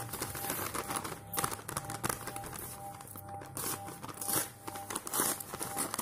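Lined notebook paper crinkling and tearing in a run of short, uneven rustles as a folded paper bag is pulled open by hand, over faint background music.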